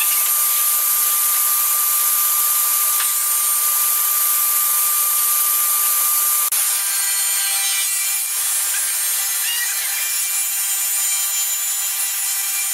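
Woodworking machinery running as it machines reclaimed timber: a loud, even rushing noise with a steady whine over it. About halfway through there is a sudden break, and the whine changes pitch.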